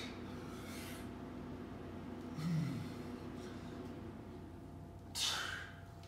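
A man breathing hard through the exertion of diamond push-ups: three short, forceful exhalations a few seconds apart, the middle one with a low grunt and the last the loudest.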